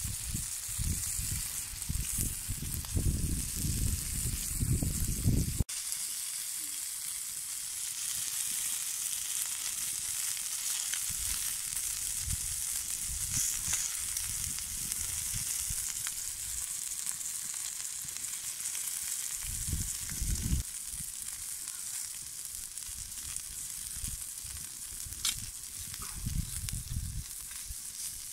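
Chicken pieces and köfte meatballs sizzling on a fire-heated stone slab, a steady hiss throughout. Low rumbling comes and goes over it, loudest in the first few seconds.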